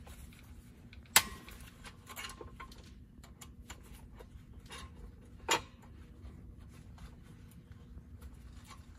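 Hex key loosening the handle screws of a CPS TRS21 vacuum pump: faint metal ticks and scrapes, with two sharper metallic clicks, one about a second in and one about five and a half seconds in, over a low steady hum.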